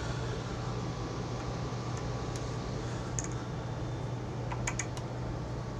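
Steady low hum with a few faint, light clicks of small parts and hand tools being handled, mostly in the second half.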